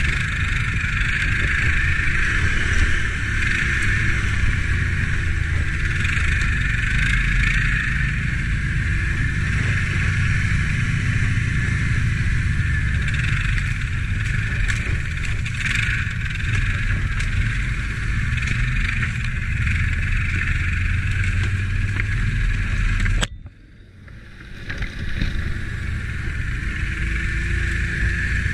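Can-Am ATV engine running steadily as the quad rides along a trail. About 23 seconds in, the sound drops away abruptly for about a second and a half, then comes back.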